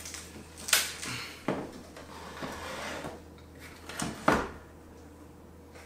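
Handling noise: a thick EV charging cable being unwrapped and laid down and the charger's plastic housing moved on a tabletop, giving a few sharp knocks with rustling and scraping between them.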